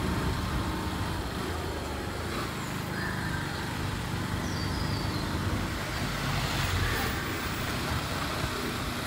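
Steady low rumble and hiss of outdoor road ambience while moving along a lane, with a few faint high bird chirps a few seconds in.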